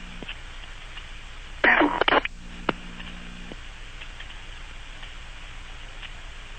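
EMS dispatch radio channel: steady radio hiss, with one brief garbled transmission burst about two seconds in, followed by a low steady hum for about a second as the channel unkeys.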